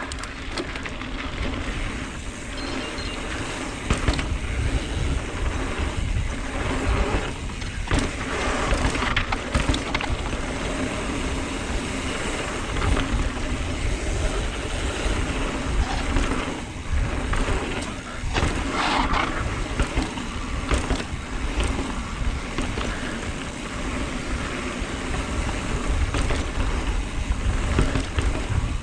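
A mountain bike ridden along a dirt trail, heard through a GoPro's microphone: a steady rush of wind on the microphone and tyre noise, with occasional knocks and rattles from bumps.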